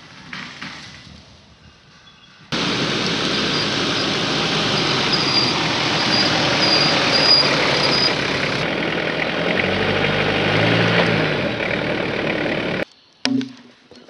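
Jeep Cherokee XJ driving over rough forest ground, its engine running under a dense, steady rushing noise, with the engine note rising briefly near the end of the drive. The sound cuts off abruptly and is followed by a few short knocks.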